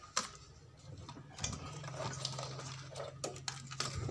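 Faint scattered clicks and light clatter of parts and tools being handled on a workbench, over a steady low hum.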